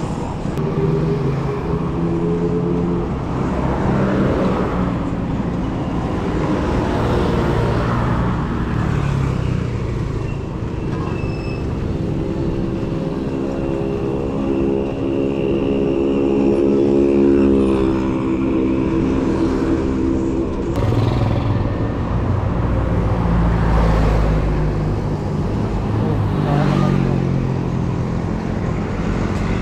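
Road traffic: car and motorcycle engines passing close by one after another over steady road noise. A deeper engine rumble comes about three quarters of the way through.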